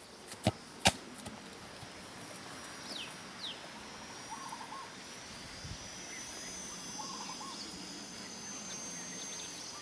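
Faint outdoor ambience with a few soft bird calls: short falling chirps and brief wavering calls. Two sharp clicks come in the first second.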